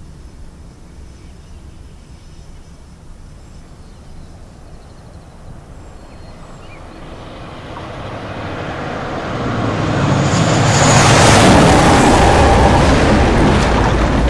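Dubbed-in pass of a jet-powered railcar. A low rumble grows into a jet roar that swells over several seconds as it approaches, is loudest about eleven seconds in with a faint high whine on top, and stays loud as it rushes past.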